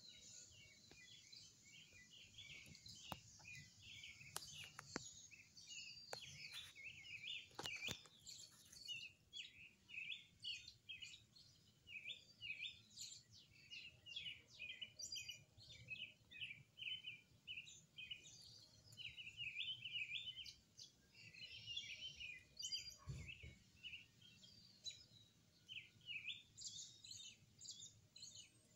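Small birds chirping and singing in a continuous run of short, high notes, with a few faint clicks in the first several seconds.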